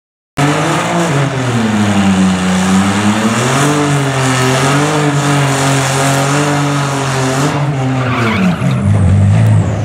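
Cadillac ATS-V's twin-turbo V6 held at high revs while its rear tyres spin in a burnout, the engine note wavering up and down over the tyre hiss. Near the end the hiss fades and the revs fall to a lower, steadier note.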